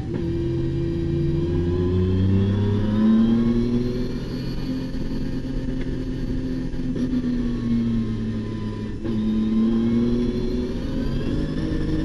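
Nissan R32 Skyline's RB26 twin-turbo straight-six under hard acceleration, heard from inside the race car's cabin. The revs climb and ease as it drives, with a brief break about nine seconds in.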